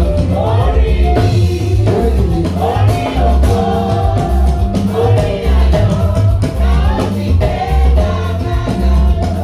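Gospel music: several voices singing together over a steady, heavy bass beat.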